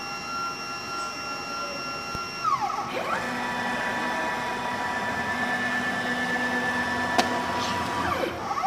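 Stepper motors of a large gantry 3D printer whining as the print head makes travel moves between probe points during auto bed leveling (bed tilt compensation). A steady whine drops in pitch and stops about two and a half seconds in. A new whine rises at about three seconds, holds for about five seconds, then falls away and starts again near the end. There is one sharp click about seven seconds in.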